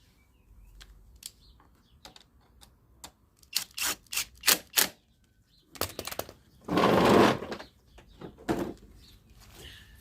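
Workshop clatter from hand tools: a run of sharp clicks and knocks, with a louder short rush of noise about seven seconds in.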